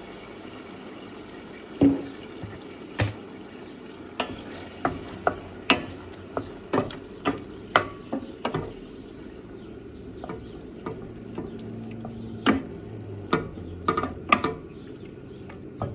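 Kitchen utensils clicking and clinking against dishes, a couple of dozen sharp irregular taps while food is handled, over a steady low hum.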